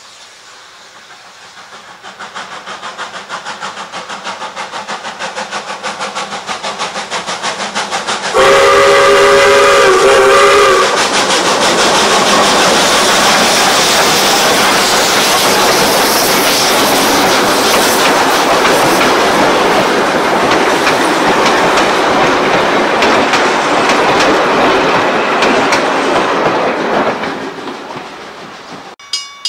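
Steam locomotive 621, a South Australian Railways 620-class 4-6-2, approaching with regular exhaust beats that grow louder, then sounding its whistle about eight seconds in for a couple of seconds with a brief break. It then passes close with steam exhaust and its carriages running by, and fades away near the end.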